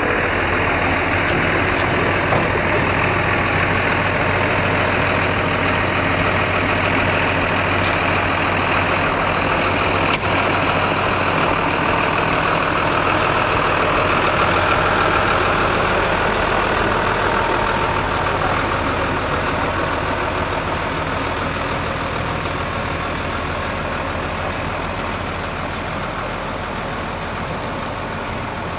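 New Holland T6030 tractor's diesel engine running steadily at close range, growing gradually fainter over the second half as the tractor pulls away.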